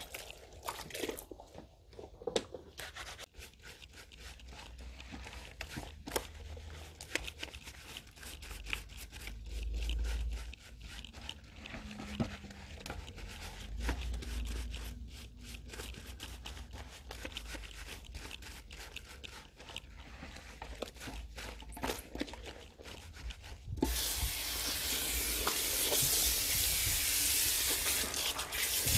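Gloved hands scrubbing shampoo through wet hair at a salon basin, a dense irregular run of rubbing and squishing strokes. About 24 seconds in, the basin's spray hose comes on and water hisses steadily as the hair is rinsed.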